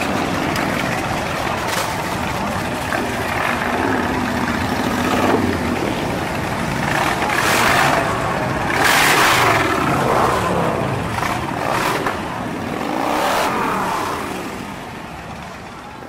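Large cruiser and touring motorcycles riding off one after another, engines rumbling and revving, rising and falling in pitch as each passes close by. The loudest passes come about halfway through and again near the end, and the sound fades as the last ones move off.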